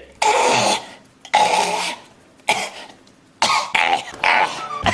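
A man coughing, about five coughs in a row roughly a second apart.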